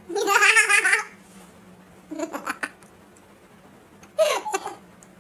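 A girl laughing in bursts: a loud, high laugh in the first second, then shorter giggles about two seconds in and again just after four seconds.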